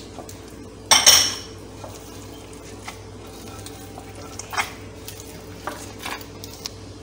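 Hands kneading olives into soft bread dough in a glass mixing bowl: quiet handling of the dough with a few light knocks against the glass. There is a single loud clatter of kitchenware about a second in.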